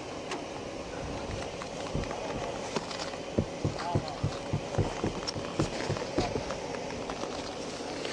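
Footsteps, a run of about three dull thuds a second for a few seconds in the middle, over steady background noise, with a faint distant voice.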